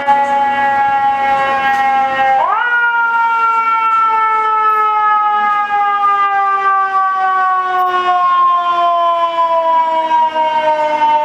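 Fire engine's mechanical siren (Federal Q type) winding down, spun sharply back up in pitch about two and a half seconds in, then left to coast slowly down again.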